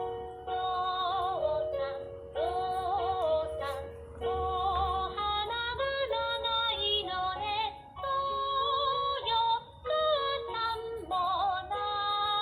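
A Japanese children's song played from an electronic sound book: a female voice singing short phrases over a simple keyboard accompaniment.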